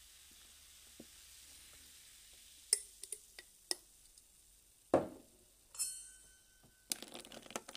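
Freshly poured tonic water fizzing faintly over ice in a glass, broken by several sharp clicks and a thud about five seconds in. A short ringing clink follows, then a dense crackle near the end.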